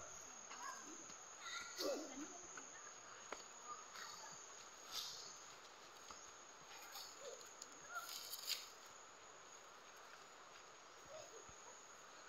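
Faint, steady high-pitched chirring of insects, with a few brief rustles about five and eight seconds in and faint distant voices now and then.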